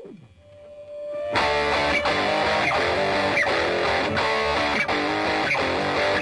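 Background music led by guitar: a single held note, then the full band comes in about a second and a half in with a steady beat.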